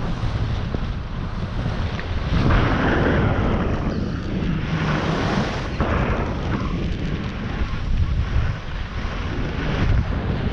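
Wind rushing over the microphone of a camera carried down a groomed ski run, with skis hissing and scraping over the packed snow. The noise swells and eases every few seconds as the skier turns.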